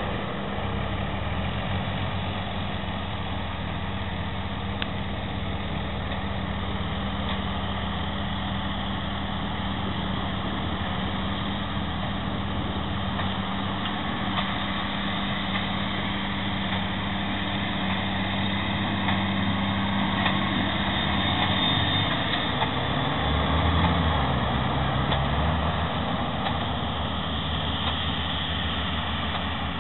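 Diesel tractor engine running steadily, its note shifting and briefly rising about three quarters of the way through.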